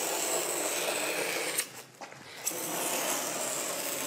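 Utility knife drawn along a template edge, cutting through a sheet of rigid PVC foam. It makes two long stretches of steady cutting noise, broken by a short pause a little under two seconds in.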